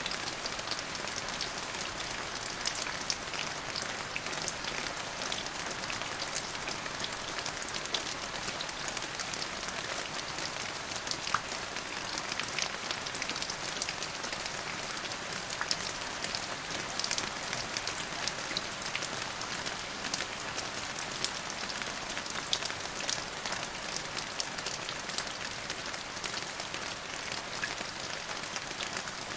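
Steady rainfall: an even hiss of rain with many individual drops ticking sharply on a hard surface.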